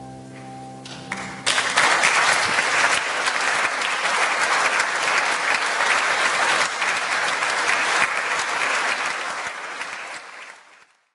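The last chord of a grand piano dies away, then an audience breaks into applause about a second and a half in. The clapping holds steady and fades out near the end.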